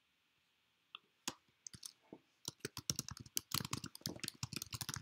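Typing on a computer keyboard: a few separate key clicks after about a second, then a quick run of keystrokes through the second half.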